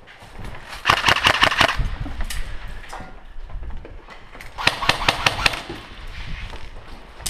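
Airsoft rifle firing two rapid bursts of BBs, each about a second long, a few seconds apart.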